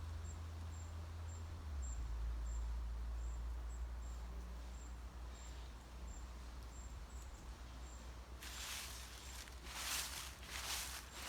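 Footsteps rustling through dry fallen leaves, starting about eight seconds in as steady walking steps. Before them, wind rumbles on the microphone over a faint steady hiss.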